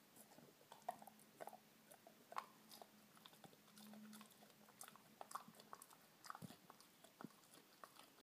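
Dachshund chewing a crunchy treat: quiet, irregular crunches and clicks of its teeth on the snack, with some licking.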